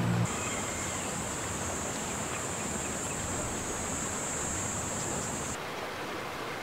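Steady outdoor ambient noise by a calm city river, an even rushing hiss with no single clear source. A high, steady buzz sits over it and cuts off about five and a half seconds in.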